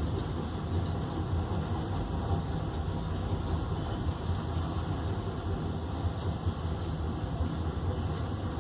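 Heavy diesel engines of a wheel loader and a tipper truck running together, a steady low rumble with no clear impacts.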